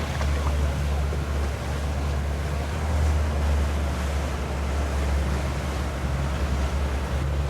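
Motorboat under way: a steady low rumble of wind on the microphone mixed with engine and water-rush noise.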